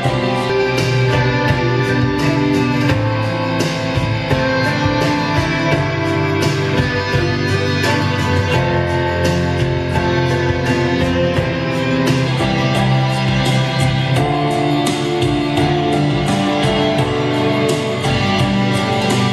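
Music with a steady beat played through a studio monitor speaker driven by a DIY two-way bi-amplifier, with one LM3886 chip amplifier for the woofer and another for the tweeter, crossing over at 2 kHz; the playback is a listening test of the amplifier.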